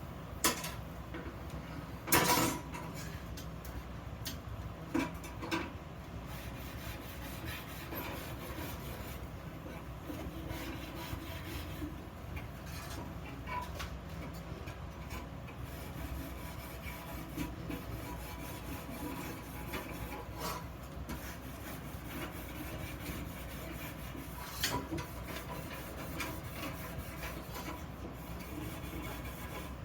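Hand work on small iron pieces: steady rubbing and scraping, like filing or brushing steel, with a few sharp metal knocks, the loudest about two seconds in, over a low steady hum.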